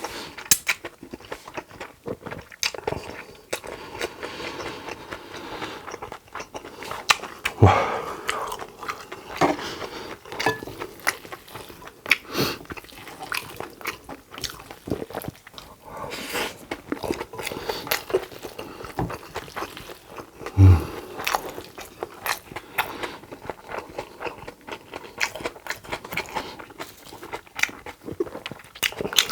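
A person chewing and eating mouthful after mouthful of a Korean meal, close to the microphone, with many small wet mouth clicks. Two louder dull thumps stand out, about eight seconds in and again near twenty-one seconds.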